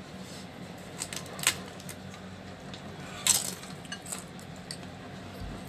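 Metal fork and ceramic spoon clinking against a bowl of chicken noodles while eating: a few scattered sharp clinks, the loudest about a second and a half in and just after three seconds.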